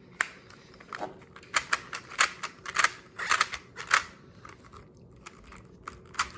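A run of sharp plastic clicks from a 5x5 Rubik's Clock puzzle being handled, coming thick and irregular for about four seconds, then only a few faint ones.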